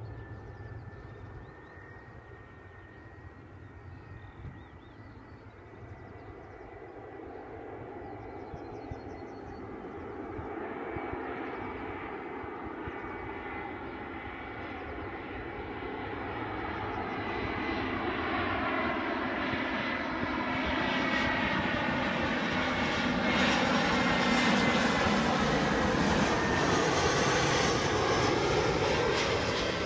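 Airbus A320 jet airliner on landing approach, its engines' roar and high whine growing steadily louder as it comes in low, the whine slowly dropping in pitch.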